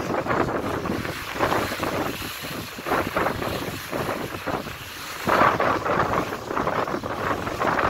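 Wind buffeting the microphone on the deck of a moving ferry: an uneven rushing noise that swells and drops in gusts, strongest about five and a half seconds in.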